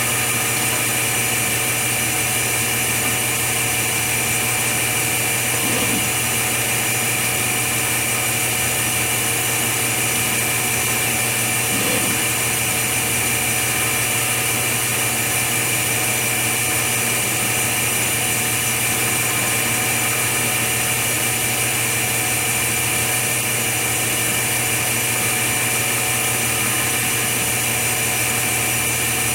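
Steady machine hum with several constant whining tones over a hiss, unchanging throughout.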